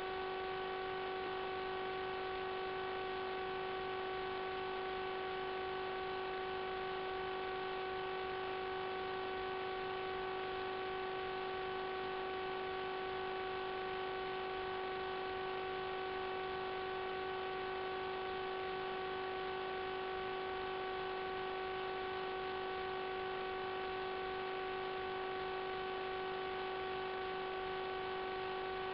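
Steady electrical hum: several fixed tones over a hiss, unchanged throughout. It does not follow the aircraft's motor, which goes from idle to about 15 A with no change in the sound, so this is interference picked up on the FPV video link's audio channel.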